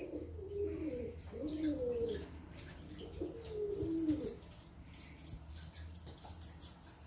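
Domestic pigeon cooing: a run of low, wavering coos that rise and fall in pitch and stop about four seconds in. Faint light splashing follows from a gull bathing in a basin of water.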